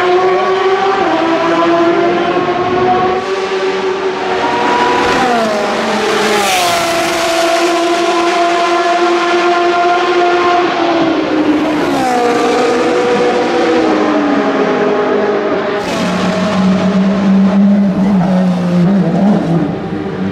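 Porsche 911 RSR racing car's flat-six engine pulling hard, its pitch climbing and dropping sharply at upshifts about 5 and 12 seconds in. The pitch then falls away and settles into low, steady running near the end.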